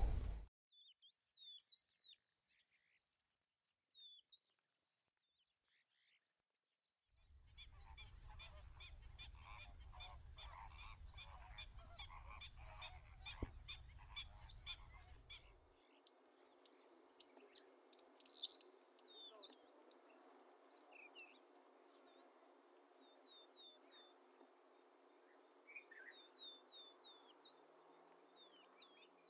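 Faint outdoor ambience of wild birds: scattered short high chirps and calls. In the middle comes a stretch of low rumbling noise with rapid chattering, and near the end a fast, evenly spaced run of high notes.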